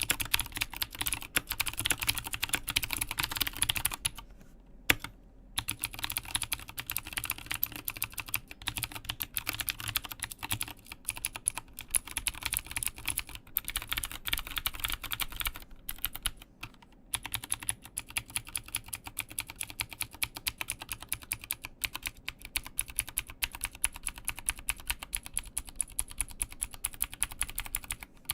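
Typing on an Mstone Groove T aluminium-case mechanical keyboard with Cherry MX Blue clicky switches: a fast, continuous clatter of sharp key clicks. There are brief pauses about four seconds in and again around sixteen seconds.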